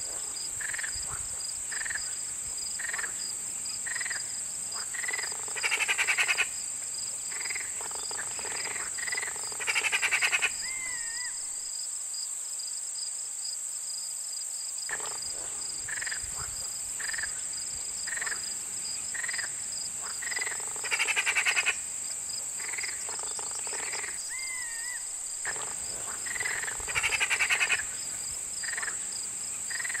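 Outdoor chorus of calling animals: a steady high-pitched insect drone, short chirps about once a second, and four loud bursts of rapid pulsed calls spaced a few seconds apart.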